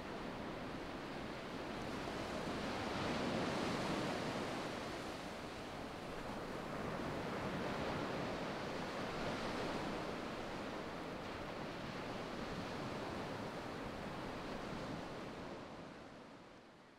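Ocean surf washing onto a sandy beach, swelling and easing with the waves, then fading out near the end.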